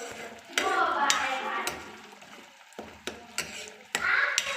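A utensil clinking and scraping against a cooking pan as a paneer and pea curry is stirred, with short sharp clicks. Children's voices are heard in the background at times.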